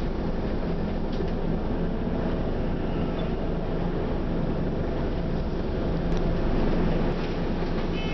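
Scania OmniCity bus's diesel engine and running gear, heard from inside the passenger saloon as the bus is under way: a steady drone that gets a little louder about six seconds in.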